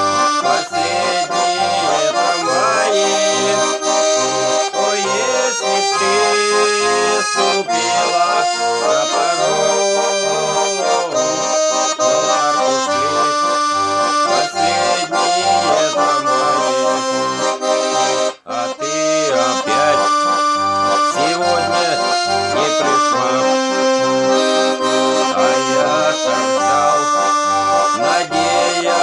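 Russian garmon (button accordion) playing an instrumental passage: a melody over a pulsing bass-and-chord accompaniment. The music breaks off for a moment about two-thirds of the way through, then carries on.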